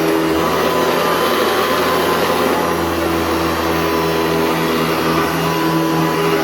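Hoover Industrial Upright C1609 vacuum cleaner with its 4.8 amp motor running steadily. A humming tone in its sound drops out about half a second in and returns about five seconds later.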